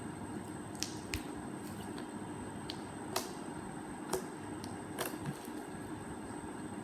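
Glitter slime being kneaded and squeezed by hand, giving a few sharp, scattered clicks and pops.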